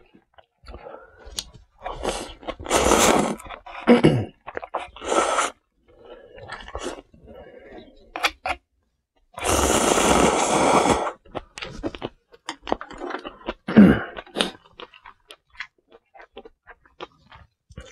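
A person slurping ramen noodles and chewing, with several slurps, the longest about ten seconds in and lasting over a second, and wet mouth smacks between them. Two short falling vocal hums, the louder one near the end.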